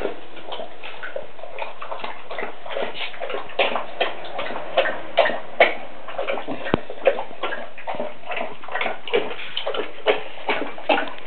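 Basset hound lapping water from a bowl: quick, irregular wet laps, about three or four a second.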